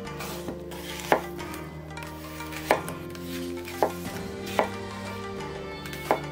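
Kitchen knife cutting apples on a wooden cutting board: about six sharp knocks of the blade striking the board, spaced unevenly. Soft background music with long held chords runs underneath.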